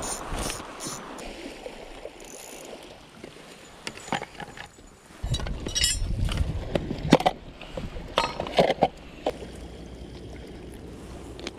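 Spinning reel's drag clicking in the first second as the drag is loosened. Then come scattered clinks and knocks of camp gear being handled, over a steady low rumble that starts about five seconds in.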